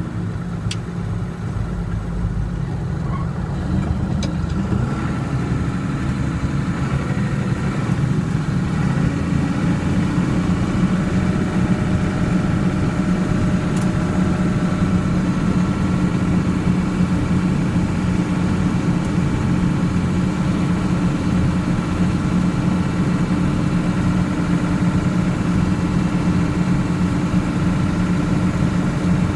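A vehicle engine running steadily. Its speed rises a little about a quarter of the way in and then holds even.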